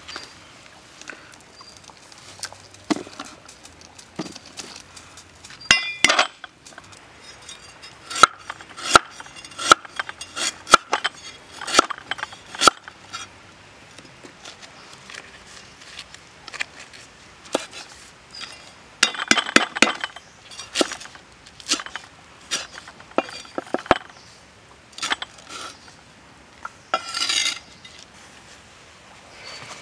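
A large knife chopping on a thick wooden chopping block: sharp, irregular knocks of the blade striking the wood. There is a steady run of chops from about 8 to 13 seconds in, and a quick flurry around 19 to 20 seconds.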